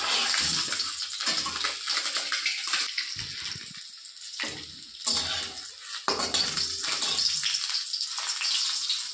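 Peeled boiled duck eggs sizzling as they fry in hot oil in a kadai, with a metal spatula scraping and tapping the pan as it turns them.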